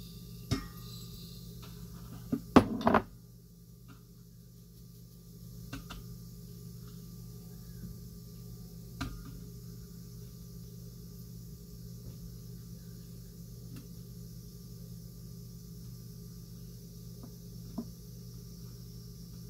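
Dry corn cob granules poured and shaken from a glass jar into a cotton sachet bag, with a few knocks and a short loud rattle between two and three seconds in. Later come only a few faint handling clicks as the drawstring is pulled and tied, over a steady low hum.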